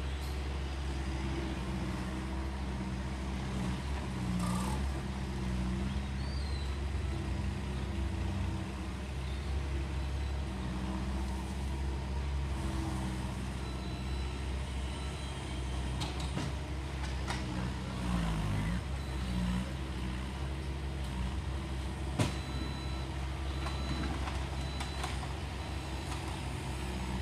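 Construction machinery running steadily: a low diesel engine drone, with a few sharp knocks, the loudest about three quarters of the way through.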